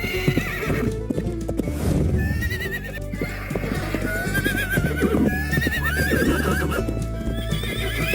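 Horses whinnying several times, each call a wavering, quavering neigh, with hooves clip-clopping beneath, over background music.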